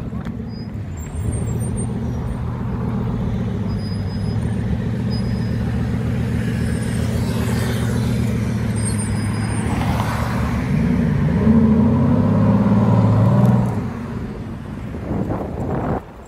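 Bugatti Veyron 16.4's quad-turbocharged W16 engine running at low revs as the car pulls away, then louder and rising in pitch about ten seconds in as it accelerates, dropping off some three seconds later.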